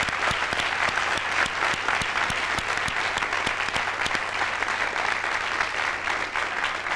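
A large audience applauding, a steady patter of many hands clapping.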